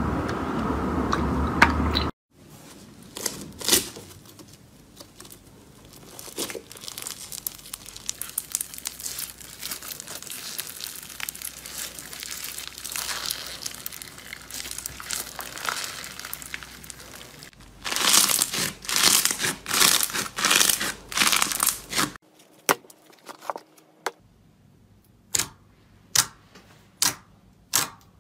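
Slime being squished, stretched and poked by hand: fine crackling and crinkling through most of it, with louder bursts of crackling past the middle, then a string of short sharp pops, about two a second, as fingers poke into a sheet of glossy slime near the end.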